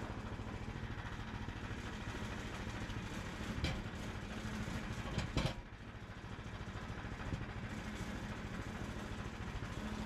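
Small gasoline engine of a Harbor Freight portable sawmill running steadily at idle, with a few sharp knocks about four and five seconds in as the log is repositioned on the mill bed.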